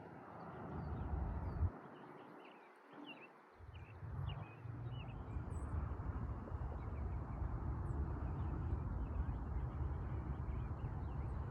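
Small birds chirping in quick, scattered calls, busiest in the first half, over a low rumble that drops away for a couple of seconds near the start.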